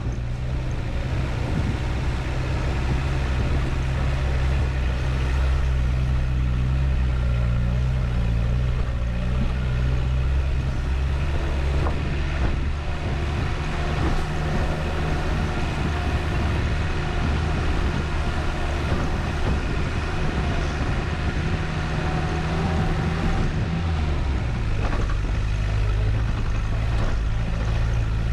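4WD vehicle engine running at low speed on a rough dirt track: a steady low drone with occasional knocks from the body over bumps. The engine note drops near the end.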